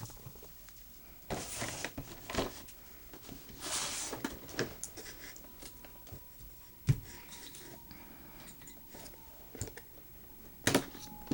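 Hands handling and opening a toy package: scattered rustles and scrapes with a few sharp clicks, quiet between them.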